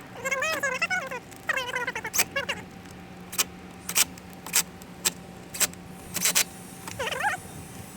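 A cat meowing: two short cries near the start and another near the end, each bending in pitch. Between them come about half a dozen sharp clicks, roughly half a second apart.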